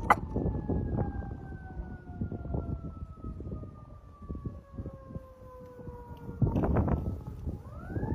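A siren wailing, its pitch falling slowly and smoothly for about seven seconds, then rising again near the end. Short irregular knocks and noises sound underneath, loudest a little before the pitch rises.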